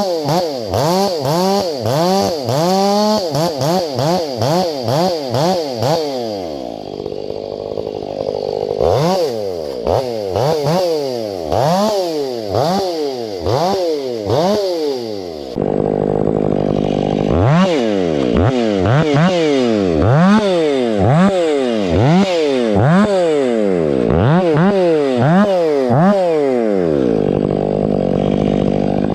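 Stihl 500i fuel-injected two-stroke chainsaw running hard through firewood logs, its engine pitch repeatedly dipping and climbing back, about once or twice a second. It gets louder and rougher about halfway through.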